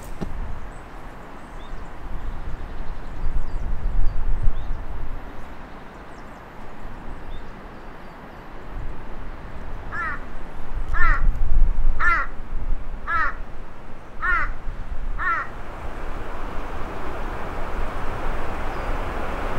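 A bird calling six times in a row, about once a second, partway through. A low rumble runs underneath, and a broader hiss swells near the end.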